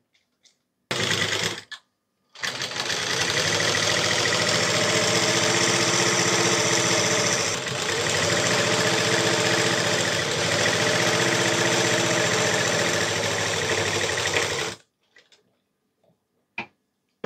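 Sewing machine stitching a seam along folded fabric: a short run about a second in, then one long steady run of some twelve seconds with a brief slowdown midway, stopping about two and a half seconds before the end. A few faint clicks follow near the end.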